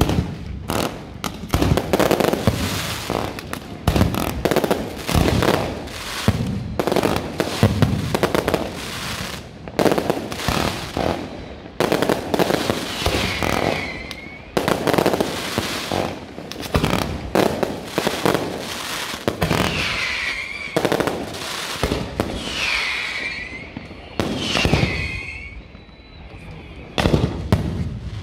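Fireworks display: a rapid, continuous barrage of bangs and booms from shells and cakes going off one after another. In the second half several falling whistles sound among the bangs.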